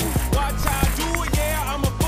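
Hip hop music with a steady beat and gliding melodic lines.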